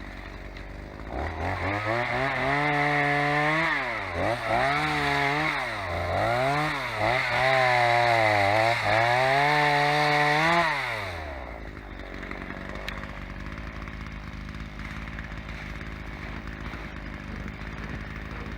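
Two-stroke chainsaw revved to full throttle and cutting through wood, its pitch dipping several times as the bar bogs under load, then falling away about eleven seconds in. The chain is freshly filed and cutting well.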